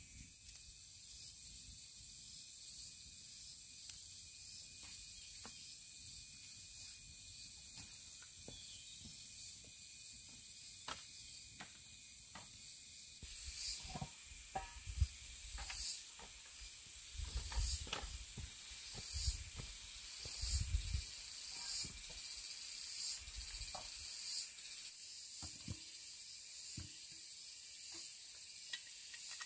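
Insects buzz steadily and high-pitched in the forest. From about halfway, a run of scattered clicks, knocks and dull thuds comes in, from someone handling things and moving over dry leaves and bamboo.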